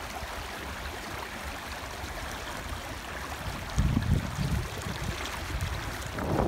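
Water rushing and splashing along the hull of a moving canoe and around its homemade float stabilizers, a steady hiss. Brief low buffeting on the microphone about four seconds in.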